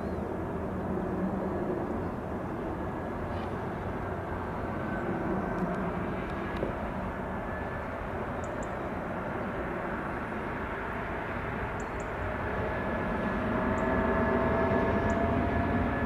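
Airbus A319 jet engines during landing: a steady low rush with a faint whine as the airliner flares and touches down. In the last few seconds the whine rises in pitch and the sound grows louder as the engines spool up on the runway after touchdown.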